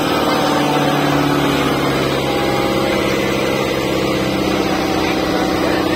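Kubota diesel tractor engine running steadily under heavy load as it hauls a loaded trolley through deep mud.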